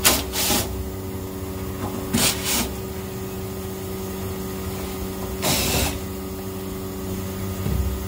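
Cordless drill-driver whirring in short bursts as it backs screws out of an AC outdoor unit's cover panel: a double burst at the start, another double burst about two seconds in, and one about five and a half seconds in. Under it, the LG inverter outdoor unit runs with a steady hum.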